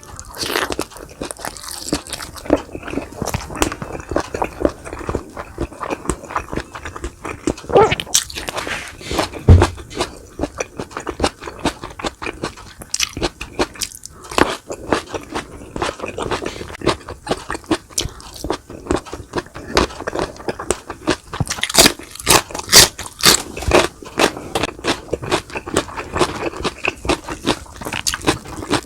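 Close-miked eating: crunchy bites and wet chewing of fried boneless milkfish with rice, a steady run of short crackles and clicks.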